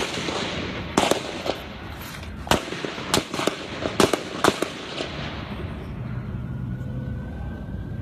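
Gunfire from a gunman shooting at people: about nine sharp shots over roughly five seconds at irregular gaps, then the shooting stops.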